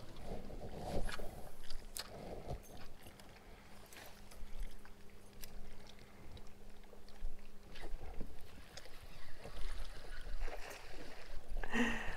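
Quiet ambience on a fibreglass bass boat: a low steady hum that stops about eight seconds in, light scattered clicks of fishing tackle, and a short louder sound near the end.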